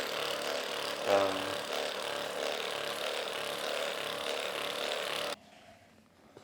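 A small motor running with a steady hum, which cuts off suddenly about five seconds in. A short voice sound about a second in.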